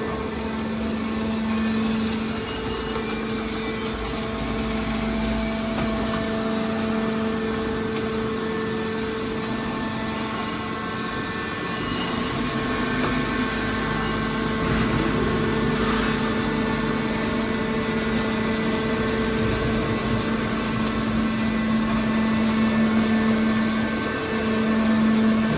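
Hydraulic scrap-metal baler's power unit, an electric motor driving the hydraulic pump, running with a steady hum.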